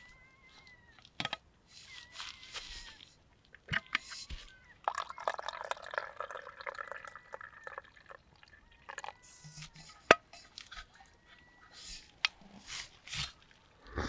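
A drink poured from a stainless-steel thermos flask into its steel cup: a steady pour of about three seconds starting about five seconds in. Sharp metal clinks and knocks come before and after it, the loudest a single clink about ten seconds in.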